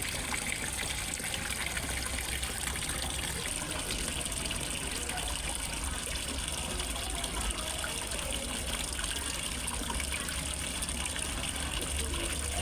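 Water falling and splashing into a fish pond, a steady rush with a trickle in it.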